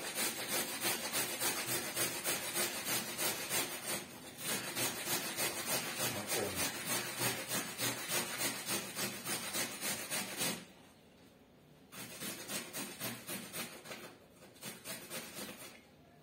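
Raw carrot being grated on a metal box grater: a long run of quick, even rasping strokes that stops about two-thirds of the way through, then resumes in two shorter spells before falling quiet near the end.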